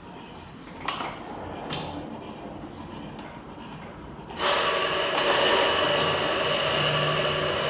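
Liquid packaging machine: two sharp clicks, then about four and a half seconds in it starts up and runs steadily, loud, with a steady high tone over its mechanical noise.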